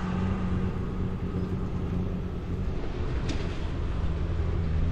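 Wind rumbling on the microphone and tyre noise on wet asphalt as a bicycle rides along a road, with a steady low hum underneath and one short click about three seconds in.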